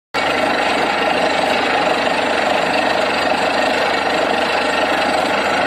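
Borewell drilling rig at work: its engine and air-driven drill hammer running loud and steady as water and muddy cuttings are blown up out of the borehole. The noise cuts in suddenly right at the start.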